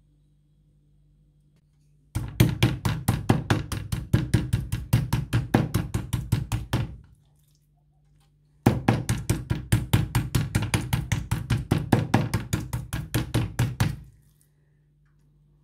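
Chicken breast being pounded flat on a wooden cutting board with a meat mallet, rapid even knocks about six a second, in two runs of about five seconds each with a short pause between.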